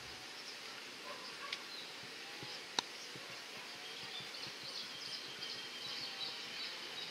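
Outdoor ambience with faint bird chirps and a thin, steady high tone from about halfway through. One sharp click a little under three seconds in is the loudest sound.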